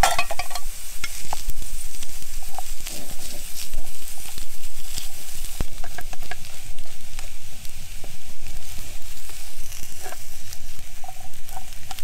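Carrots, beans, cabbage and mashed potato frying in hot oil in a pan, sizzling steadily while being stirred, with scattered sharp clicks of a utensil against the pan.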